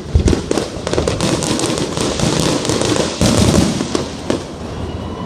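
Aerial fireworks going off in quick succession: a big bang just after the start, then a dense spell of bangs and crackling that builds to a thick cluster about three and a half seconds in and thins out near the end.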